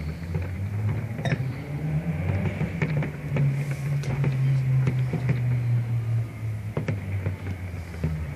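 Distant fireworks bursting: sharp bangs about once a second over a loud, continuous low rumble.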